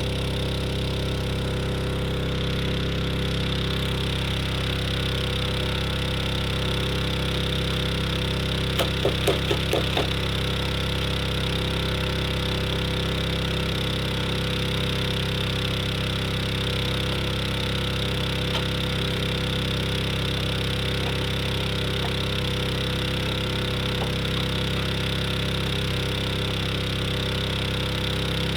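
Tractor engine running steadily, with a brief run of five quick sharp sounds about nine seconds in.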